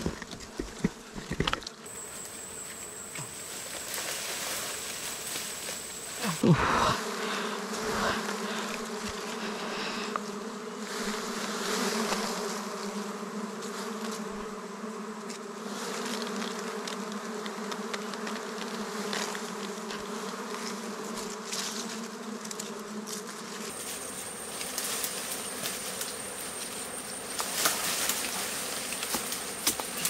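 A swarm of wild honeybees buzzing steadily around their comb as it is cut from a bush. A few sharp knocks and rustles of branches come near the start, with a louder knock about six seconds in.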